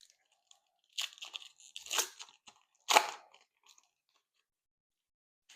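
Crinkling and crackling of a trading-card pack wrapper and cards being handled, in three bursts about a second apart; the last is the loudest.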